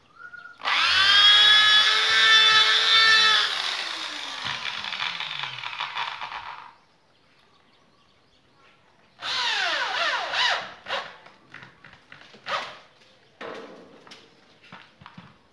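Corded electric drill boring into a wooden plank, its whine dropping in pitch as the bit bites into the wood. It stops, then runs again in a second, shorter burst, followed by a few light knocks and clicks.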